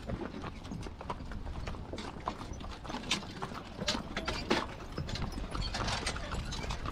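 Hooves of a harnessed mule team walking on asphalt: an irregular run of sharp clip-clops.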